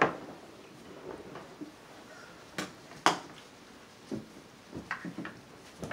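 A handful of short knocks and clicks of a chair and table being bumped as a person gets up from a dinner table, the loudest right at the start and another about three seconds in, with faint handling noises between.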